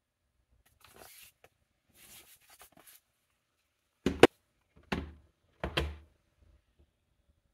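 Faint rustle of hands on a ThinkPad T14 laptop, then three dull knocks about a second apart as it is set down and shifted on a wooden desk. The first knock is the loudest, a quick double hit.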